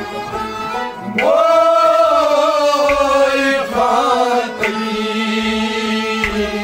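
A man singing a Kashmiri kalam, with a long held phrase that starts about a second in and a shorter one after it. He is accompanied by a bowed sarangi and a plucked rabab, whose sharp plucks come through between the phrases.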